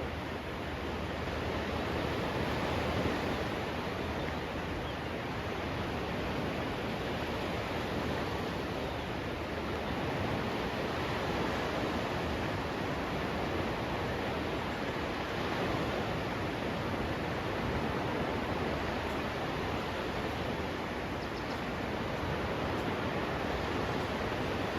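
Steady rushing noise of sea surf and wind on the beach, even and unbroken.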